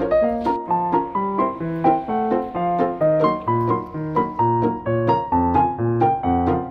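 Background piano music, notes struck in a steady even rhythm; lower bass notes come in about three and a half seconds in.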